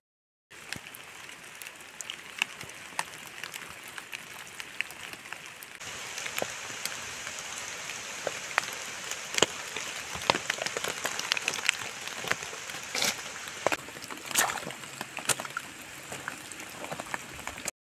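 Rain falling steadily, with many sharp ticks of individual drops striking close by; it gets louder about six seconds in.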